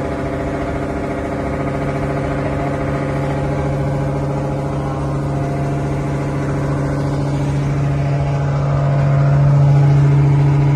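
Resupply boat's engine running steadily, heard from on board, growing a little louder near the end.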